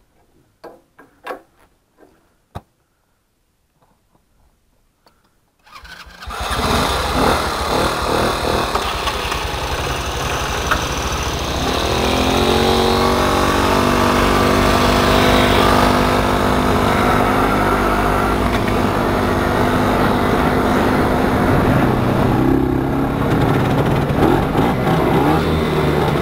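A geared motorcycle being tow-started on a rope. A few light knocks and clicks come first as the strap is handled. About six seconds in a loud, steady rush of riding begins. From about twelve seconds an engine is running, its pitch rising and falling with the revs.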